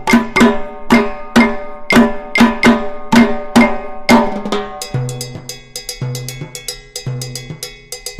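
Percussion-led music with a steady beat of sharp, pitched drum strikes, about two a second. About five seconds in the pattern changes and a deep bass note enters about once a second.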